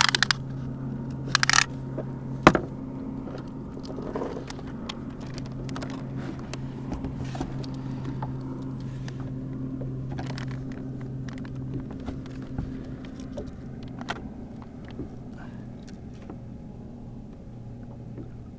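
Clicks and knocks from hands handling a fluke and a tape measure on a plastic kayak deck, with a few sharp clatters in the first three seconds and light ticks after. Under them runs a steady low hum that stops near the end.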